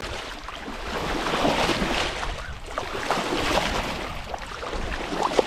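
Wind buffeting the microphone over the steady wash of water along a sailboat's hull as it moves under sail.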